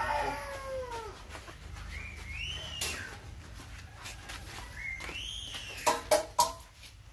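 Young puppies whimpering: high, thin whines that rise and fall, one fading at the start and two more about two and five seconds in. Three sharp clicks or knocks follow near the end.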